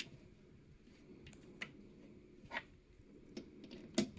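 A few light clicks and taps, spaced out by a second or so, from PC fans, a radiator and a metal support bracket being handled and shifted into place during assembly.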